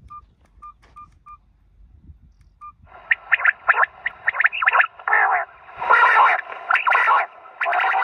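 A few short electronic beeps as the caller is switched on, then, about three seconds in, recorded quail calls start playing loudly from a battery-powered electronic bird caller's loudspeaker, thin and tinny, in quick repeated bursts. This is the lure that draws quail into the net.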